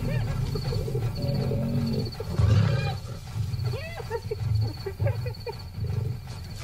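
Lions growling low and repeatedly over a buffalo kill while spotted hyenas whoop and giggle around them in short rising-and-falling calls. A faint high pulsing trill runs underneath.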